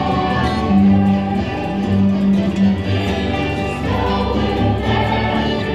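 Music with a choir singing over instruments.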